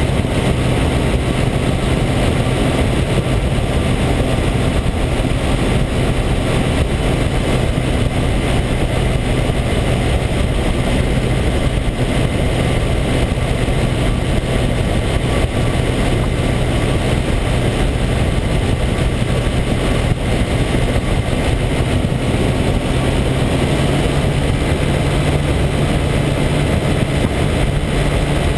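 Microlight trike (motorised hang glider) engine running steadily in flight, under heavy rushing wind noise. The engine note rises a little near the end.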